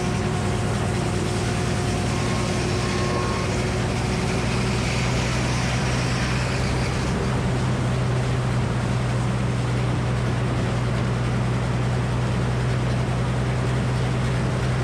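Frick circular sawmill running steadily, its 48-inch blade with new sharp bits sawing a poplar log. A higher hiss from the cut stops about seven seconds in, leaving the steady hum of the running mill.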